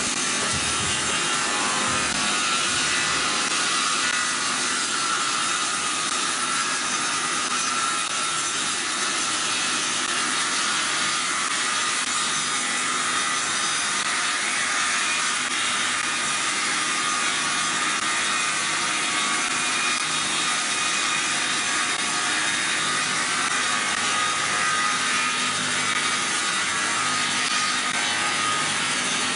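Twin-shaft multi-blade circular log saw (CBS-200) ripping a burnt log into boards: a steady, even high sawing noise that runs without a break.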